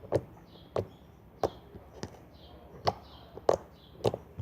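Homemade slime being squeezed and pressed in the hands, making sharp clicking pops, about seven of them at uneven intervals of roughly half a second to a second.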